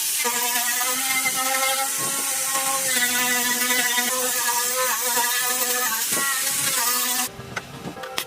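A handheld electric power tool running with a steady whine and hiss, its pitch dipping briefly a few times as it bears on the work. It cuts off suddenly about seven seconds in, followed by a few light clicks.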